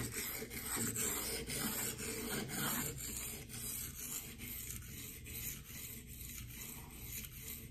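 Steel knife blade scraping back and forth on the coarse 240-grit side of a Venev resin-bonded diamond waterstone, a gritty rasp in quick repeated strokes, about three a second, that grows quieter after about three seconds.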